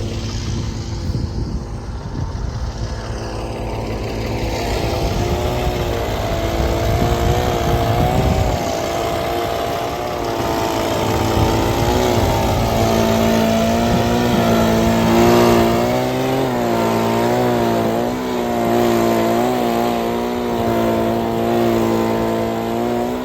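Farm tractor engine running with a snow blade on the front. It starts as a low rumble, then from about five seconds in its pitch keeps rising and falling as the revs change while it works.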